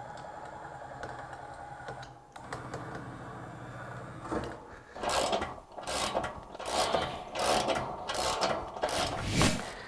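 Zip ties being pulled tight, ratcheting through their locks in a run of short zipping strokes, about two a second, from roughly halfway in; before that only faint handling noise.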